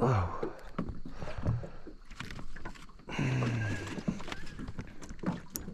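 Irregular knocks and splashy clatter around a small aluminium tinny while a hooked barramundi is brought in, with a man's short 'Oh' at the start and a low falling groan about three seconds in.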